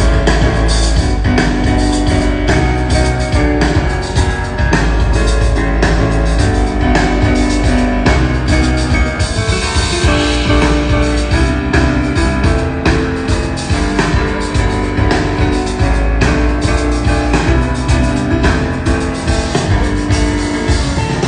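Jazz piano trio playing live: piano, double bass and drum kit together at full volume, the piece stopping abruptly at the very end.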